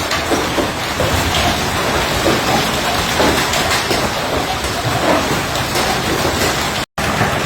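Hailstones and heavy rain pelting down in a severe thunderstorm: a loud, dense, steady clatter of impacts, broken once by a brief gap near the end.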